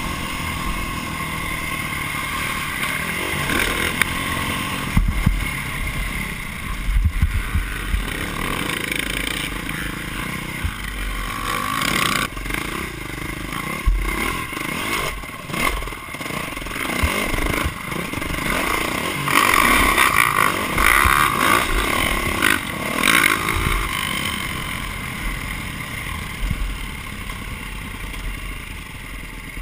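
Dirt bike engine heard from onboard, revving up and down through the gears, with wind on the microphone and scattered thuds and clatter from bumps and landings. Near the end the engine drops to a lower, quieter run as the bike slows.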